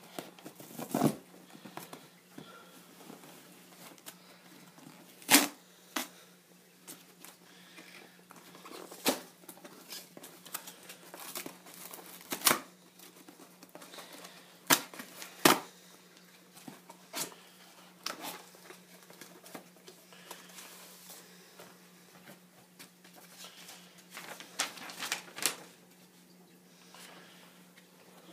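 Packaging being handled and opened by hand: crinkling and tearing, broken by about a dozen sharp clicks and knocks.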